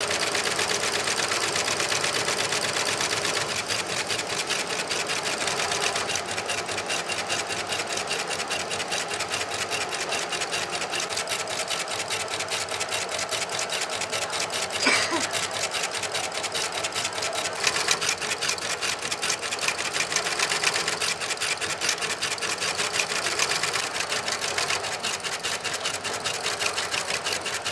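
Richpeace computerized carbon-fibre stitching machine running continuously, its needle head going in a fast, even rattle of needle strokes as it stitches carbon fibre tow onto a felt backing. A single sharp click comes about halfway through.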